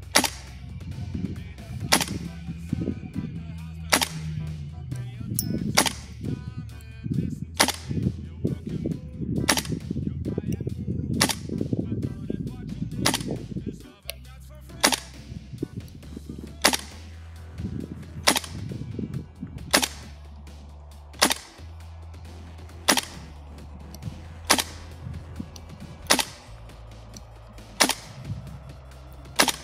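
GHK Steyr AUG gas blowback airsoft rifle firing single shots, one sharp crack roughly every one and a half to two seconds, about eighteen in all. Background music plays underneath.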